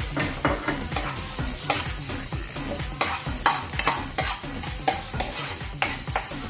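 Chopped garlic sizzling in a little hot oil in a wok, being stirred, with many sharp clicks and scrapes from the utensil against the pan. The garlic is frying until golden brown.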